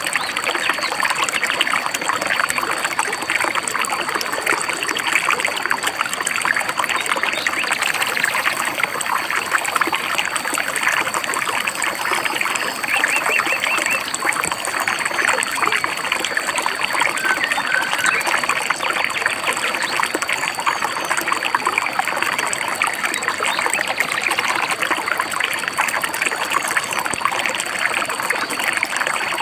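Stream babbling and trickling steadily, with a few brief bird chirps: a short trill about 13 seconds in and a pair of chirps a few seconds later.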